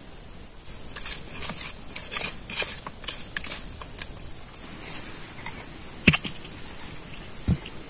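Rustling and crackling, then two sharp knocks, over a steady high-pitched drone.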